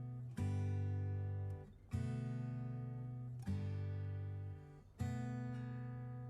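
Outro music: acoustic guitar chords strummed about every second and a half, each left to ring out.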